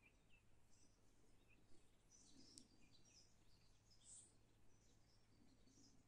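Faint birdsong: scattered high chirps and short whistled notes, busiest about two and four seconds in, over a faint steady low hum.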